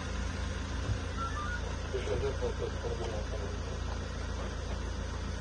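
Steady low hum of a vehicle engine idling, with faint voices in the background.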